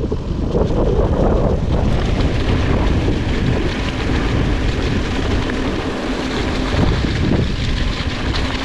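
Wind buffeting the microphone of a mountain bike descending a bumpy gravel forest road, mixed with the tyres rolling over the rough, leaf-strewn surface.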